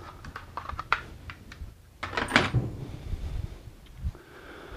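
Light clicks and clatter of plastic plotter parts being handled and set down, with a louder clatter about two seconds in and a dull thump near the end.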